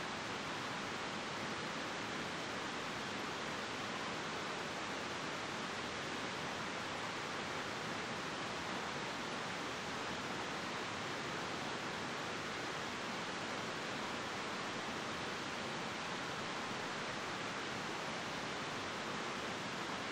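A steady, even rushing hiss that holds unchanged throughout, with no engine, whistle or other distinct sound standing out.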